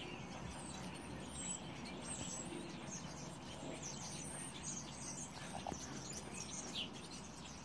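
A flock of small songbirds chirping and calling together, many short high twitters overlapping over a steady background hiss.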